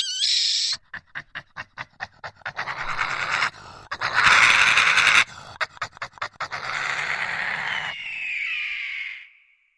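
An animal panting in quick, rhythmic breaths that become louder and rougher, with a thin whining tone near the end that fades out.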